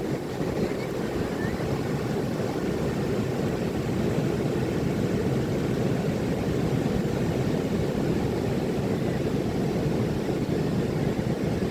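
Ocean surf breaking on a beach: a steady, low rumble of waves.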